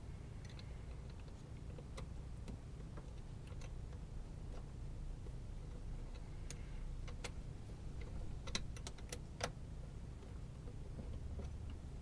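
Scattered light clicks and taps of small hardware being handled, with a quick run of several sharp clicks about eight and a half to nine and a half seconds in, over a low steady hum.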